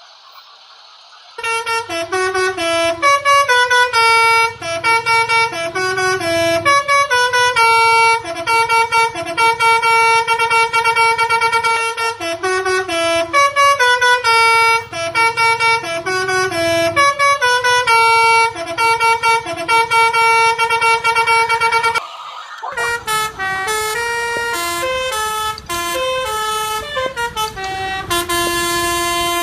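Telolet basuri truck horn, a multi-tone air horn, playing a tune in quick stepped notes that starts about a second and a half in. It breaks off briefly about three-quarters of the way through, then plays a different tune.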